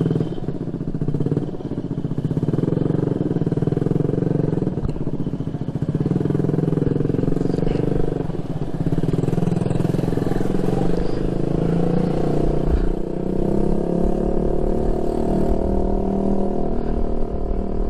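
Motorcycle engine running steadily while riding at low speed, its note rising and falling with the throttle, heard from on board the bike.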